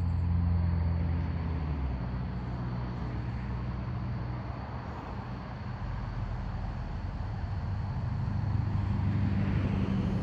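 A steady low engine hum, its pitch shifting about two seconds in.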